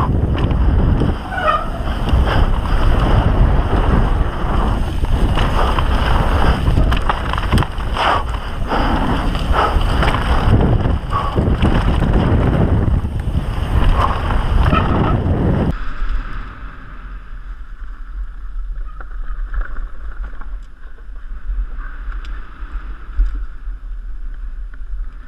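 Mountain bike descending at speed, heard from a camera mounted on the rider: wind rushes over the microphone while the tyres and frame rattle and knock over the dirt trail and wooden boardwalk. About 16 seconds in, the sound abruptly turns much quieter and muffled.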